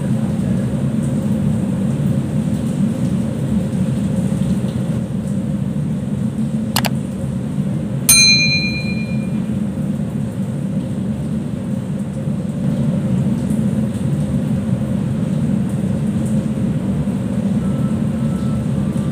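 Steady low hum of ship's machinery and ventilation. About seven seconds in comes a sharp click, and a second later a bright bell-like ding that rings out for about half a second: the chime of a subscribe-button animation.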